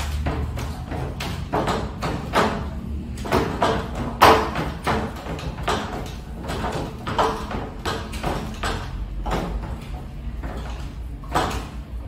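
Hand screwdrivers turning screws into a metal desk frame and its brackets: a run of irregular scraping, creaking and knocking strokes, several a second, the loudest about four seconds in, over a low steady hum.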